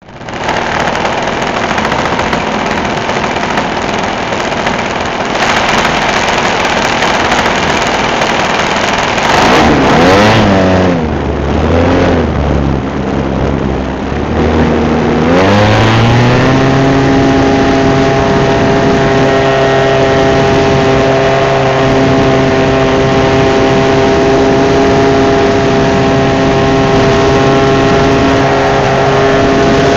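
RC model Cessna 182's motor and propeller, heard from a camera on board. First a loud rushing noise; then, about a third of the way in, the motor's pitch drops and wavers, climbs again about halfway through and holds a steady note.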